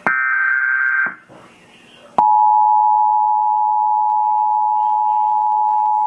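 Emergency Alert System tones through a television speaker. First comes the last of the SAME header data bursts, a buzzy digital warble of about a second. About a second later the steady two-tone EAS attention signal cuts in and holds, the signal that comes before the spoken tornado warning.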